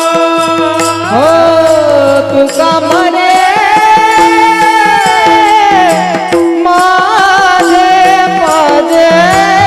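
Marathi devotional abhang: a voice sings long, gliding melodic notes over a steady drone and instrumental accompaniment, with low drum strokes coming in near the end.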